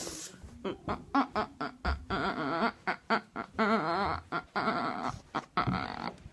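A dog whining and yelping in a string of short cries, several a second, some of them longer with a wavering pitch.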